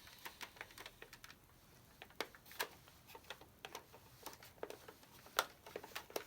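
Plastic body of a Nerf sniper rifle being handled, giving faint, irregular light clicks and taps, several a second.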